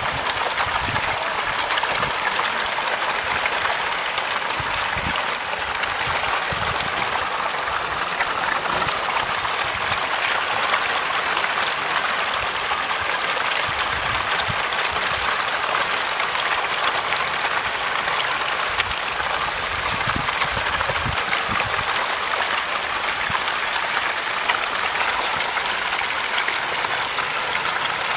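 Hundreds of catfish churning and splashing at the water's surface as they crowd onto a heap of feed: a steady wet splashing and slapping made of many small splashes.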